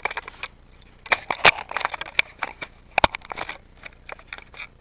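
Handling noise of a small handheld camera being fumbled and turned around: a run of irregular sharp clicks, knocks and rubbing on the microphone, busiest between about one and two seconds in, with a sharp knock just after three seconds.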